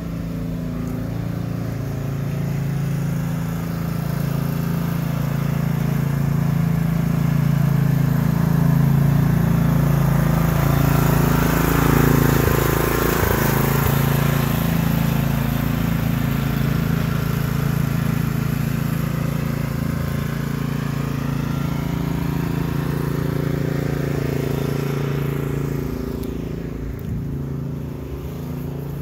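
Small riding lawn mower running steadily, growing louder as it passes close by about halfway through, then easing off again.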